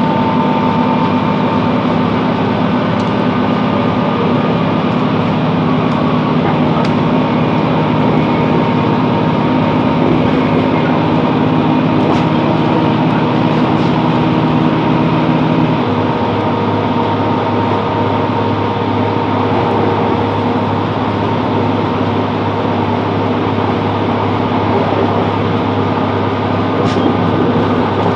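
Class 165 Networker Turbo diesel multiple unit running at speed, heard from on board: a steady hum from the underfloor diesel engine and running gear. About sixteen seconds in, the engine note changes and settles into a lower steady drone.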